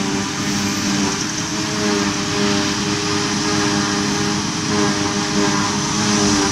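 Self-propelled forage harvester at work cutting grass for silage, running alongside a tractor and trailer: a steady machine drone with a constant hum of several tones.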